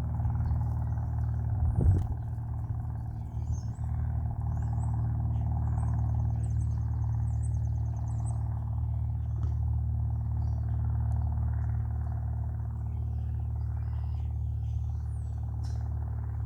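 A steady low engine hum, with a knock about two seconds in. Small birds chirp faintly over it, with a quick repeated trill in the middle and more chirps near the end.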